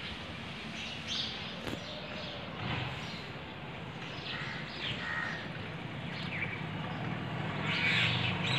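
Birds calling outdoors: scattered short calls and chirps, some harsh and crow-like, coming more often near the end, over a low steady background hum.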